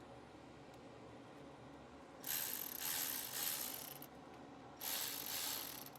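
Ratchet wrench clicking in two runs, snugging a new hose clamp on the water outlet hose.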